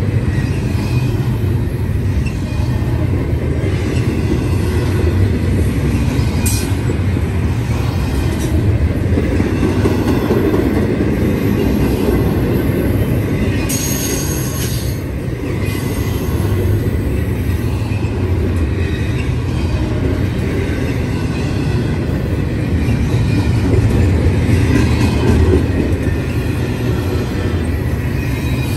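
Double-stack intermodal container well cars of a freight train rolling past close by, giving a steady heavy rumble of wheels on rail. Brief high-pitched wheel squeals come about six seconds in and again around fourteen seconds.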